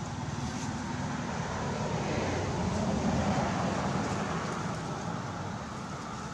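Noise of a passing vehicle, swelling to its loudest about three seconds in and then fading.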